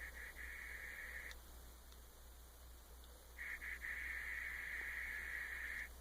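Audiometer test tone in a child's behavioral hearing test, the signal the child listens for before dropping the ball in the bucket: a faint, steady high tone sounds for about a second, stops, then sounds again for about two and a half seconds.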